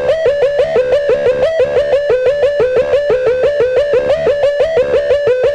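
Noise music: a loud pitched figure that repeats quickly, about five or six notes a second, each note bending upward.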